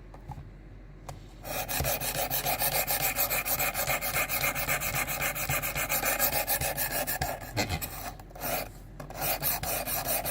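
A knife blade being stroked back and forth along a 320-grit sharpening stone on a Work Sharp Precision Adjust. The rapid, even rasping strokes start about a second and a half in and pause briefly past the middle before resuming. A dull edge is being ground to a new, steeper bevel.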